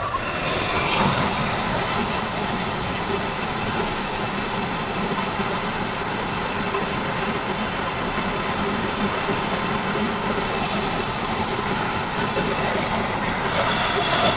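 A steady mechanical running sound, like a motor or machine, with no clear changes.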